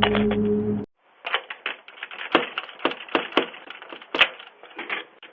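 A steady droning hum cuts off suddenly just under a second in. It is followed by a run of irregular sharp clicks and knocks, about three a second, thin and band-limited as through a doorbell camera's microphone.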